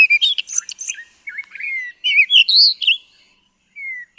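Cape robin-chat singing: a run of varied whistled phrases with quick slides and trills. There is a short pause about three seconds in, then a brief falling whistle.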